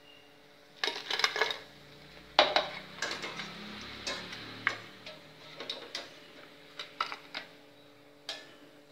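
Stainless-steel wire spider strainer clinking and tapping against a steel deep-frying kadai as fried pieces are lifted out and set down: a string of sharp metal clinks, the loudest about two and a half seconds in.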